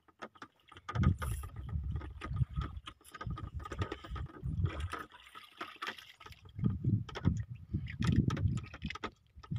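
Sounds aboard a small boat at sea: irregular low rumbling of water and movement in surges, with scattered knocks and clicks.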